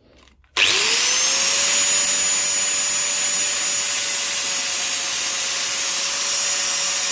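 Angle grinder starting up about half a second in, its whine rising quickly to a steady pitch, then grinding the rusty steel head of a lump hammer clamped in a vise, with a steady hiss of metal being ground.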